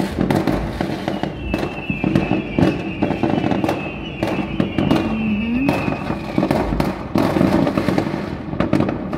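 Many fireworks going off at once across the city: a dense, continuous run of bangs and crackles from bursting rockets and shells. A faint high tone, falling slightly, holds for several seconds in the middle.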